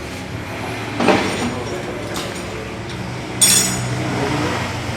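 Metal parts or tools knocking in a motorcycle workshop, twice: about a second in, and more sharply with a brief ringing clink a little past the middle. A steady low hum runs underneath.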